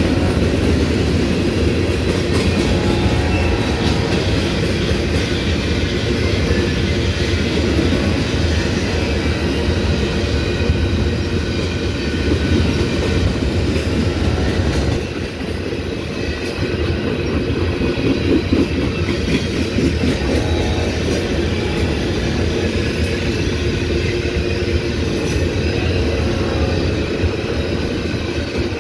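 Empty covered hopper cars of a freight grain train rolling past close by: a steady rumble and clatter of steel wheels on the rails, dipping briefly about halfway through.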